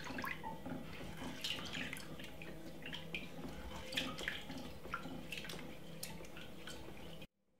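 Black rice being washed by hand in water in a glass Pyrex measuring jug: fingers stirring and rubbing the grains make irregular splashing with small clicks. It stops abruptly near the end.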